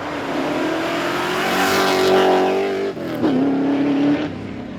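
VH Holden Commodore SS Group 3's V8 engine under hard acceleration: the revs climb for about three seconds, dip suddenly at a gear change, hold steady briefly, then the driver lifts off near the end.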